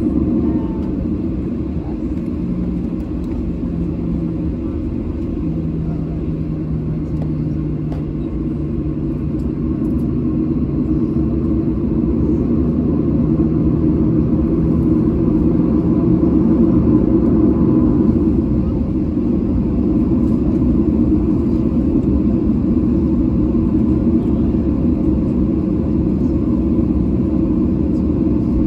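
Steady low rumble inside the cabin of a Boeing 737-900 taxiing on the ground, with its CFM56-7 engines running. A faint steady hum comes and goes during the first half, and the noise swells slightly a little past the middle.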